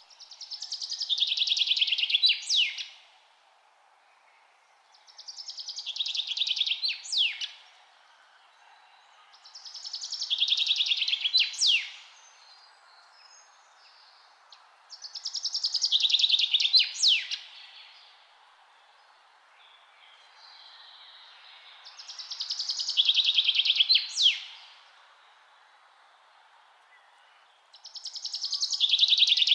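A songbird repeating the same song about every five to six seconds, six times: each song is a rapid trill that swells in loudness for about two seconds and ends in two or three quick, sharp downward-sweeping notes. A faint steady hiss lies underneath.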